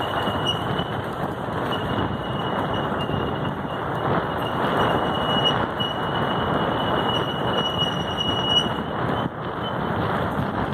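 Vehicle driving slowly: steady road and engine noise, with a thin high-pitched whine running through most of it that drops out near the end.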